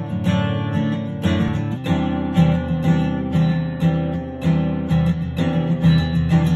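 Background music: acoustic guitar strumming chords at a steady pace.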